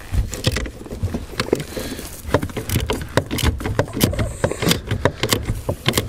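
Hand ratchet clicking in short, uneven strokes, with light metal knocks, as a tight self-locking 10 mm nut is worked loose.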